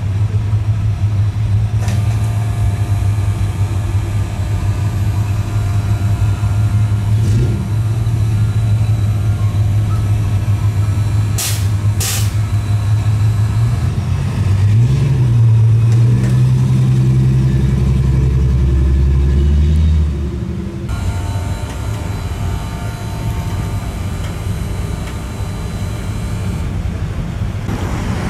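Lowered pickup truck's engine idling steadily, then revving up about halfway through as it pulls away, with a strong low rumble. There are two brief sharp sounds shortly before. Afterwards a quieter engine is running.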